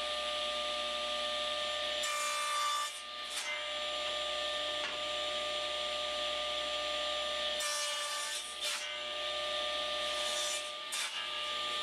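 Table saw running steadily with its blade spinning, making two miter cuts through white oak on a 45-degree crosscut sled, the first about two seconds in and the second about eight seconds in, each lasting about a second. Short wooden knocks follow as the cut pieces and stock are moved.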